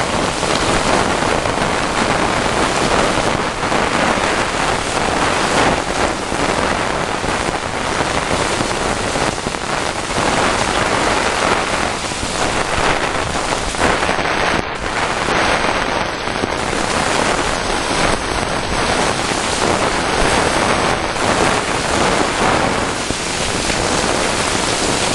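Strong wind blowing over the microphone, a loud, steady rush of noise that swells and eases a little.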